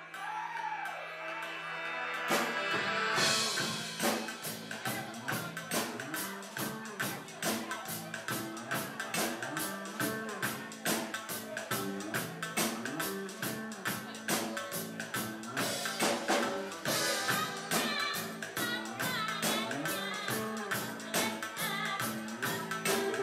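Live band music: after a quieter opening, the full band comes in about two seconds in with a steady, fast drum beat and electric bass guitar.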